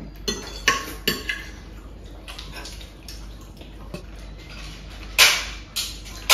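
Forks and knives clinking and scraping on ceramic dinner plates during a meal: a few light clinks in the first second or so, then a louder, brief clatter about five seconds in.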